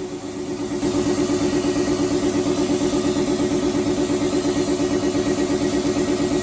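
An electric motor running steadily with a pulsing hum. It dips briefly at the start and comes back up to speed about a second in.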